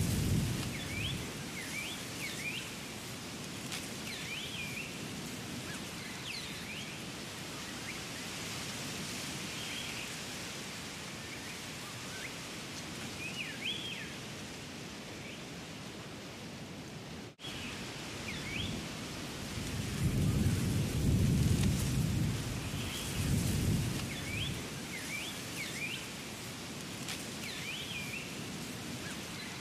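Nature ambience: a steady rain-like hiss with scattered short high chirps, and low rumbles of distant thunder, strongest about two-thirds of the way through. The sound drops out briefly just past the middle.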